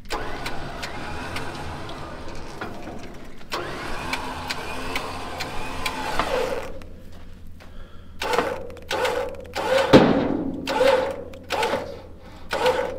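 Winch pulling a strap wrapped around a side-by-side's tyre to drag the wheel sideways onto a trailer. It runs steadily for about six seconds, then is bumped on and off in short bursts, roughly one a second.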